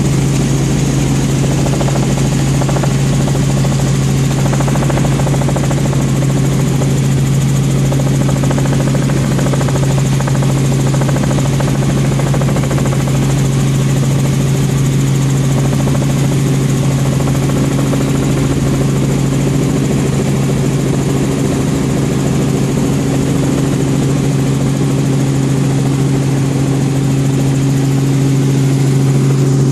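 Robinson R44 Raven I helicopter in cruise flight, heard from inside the cabin: the loud, steady drone of its six-cylinder piston engine, rotors and transmission. One low hum dominates, with a few higher tones over a steady rush, and the pitch holds constant.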